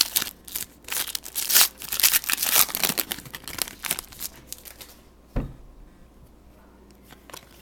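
Trading-card pack wrapper crinkling and tearing as it is ripped open and handled, in irregular rustles for about five seconds. A single soft thump comes about five and a half seconds in, followed by quieter handling.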